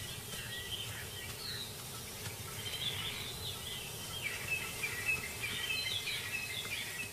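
Dry-bush ambience: small birds chirping and twittering, busier in the middle and second half, over a steady low background hiss.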